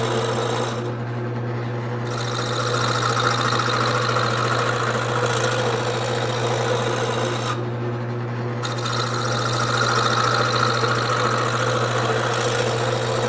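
Wood lathe running steadily while a hand-held cutting tool scrapes across the spinning wooden blank, roughing it down toward round; the cutting noise stops briefly twice, about a second in and again past halfway, as the tool comes off the wood while the motor hum carries on.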